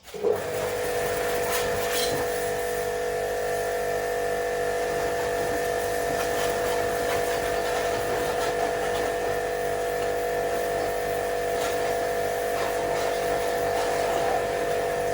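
An electric motor switches on suddenly and runs at a steady speed with a constant buzzing hum.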